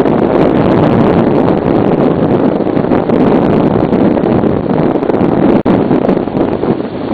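Sea-Doo personal watercraft running at speed, its engine noise mixed with heavy wind buffeting the microphone in a loud, steady rush. The sound drops out for an instant a little over five seconds in.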